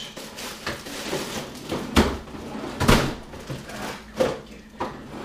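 Rummaging in a refrigerator's pull-out freezer drawer: frozen packages and the wire basket knock and clatter, with several sharp knocks, the loudest about two and three seconds in.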